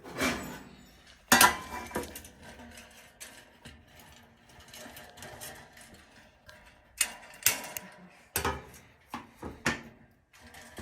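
Irregular sharp clicks, knocks and clatter of hand tools and metal parts being handled while working on a dryer's heating coil, the loudest knocks about a second and a half in and again around seven to nine seconds in.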